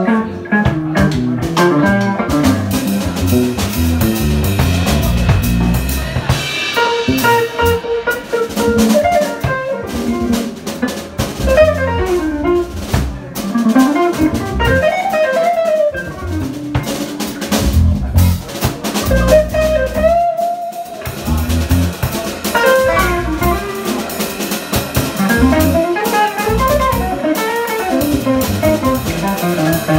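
Live band playing: hollow-body electric guitar and electric bass over a drum kit keeping a steady beat, with a keyboard in the band.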